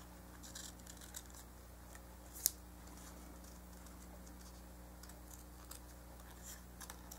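Faint, scattered snips and clicks of scissors cutting paper, with one sharper click about two and a half seconds in, over a steady low hum.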